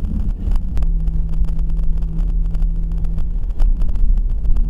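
Driving noise inside a car's cabin: a steady low engine and road rumble, with a steady hum from about a second in that stops about two and a half seconds later.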